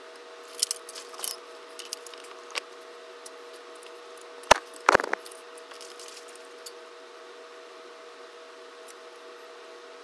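Handling noises: a few light clicks and rattles, then a cluster of sharp knocks about halfway through, over a steady hum.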